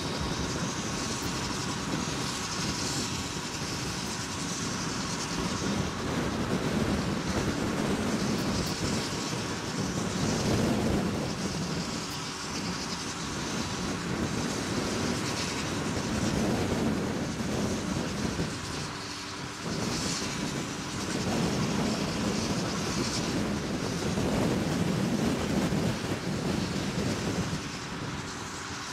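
Vehicle road noise at speed: engines running steadily under a rush of wind and tyre noise, swelling and easing in level.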